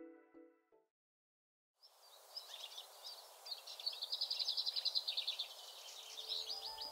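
Music notes die away, and after a second of silence there are bird calls over a steady ambient hiss: scattered high chirps and a fast trill of evenly spaced notes in the middle.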